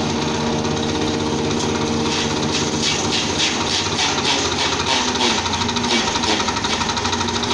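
Engine-driven chaff cutter running and chopping dry stalks: the small engine runs steadily, and from about two seconds in a rapid crunching rattle of the blades cutting the stalks fed into it comes in and keeps going.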